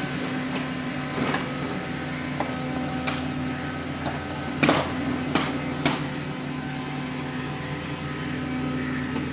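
SANY SR235C rotary drilling rig's diesel engine running steadily, with a few sharp metal clanks near the middle, the loudest a little before five seconds in.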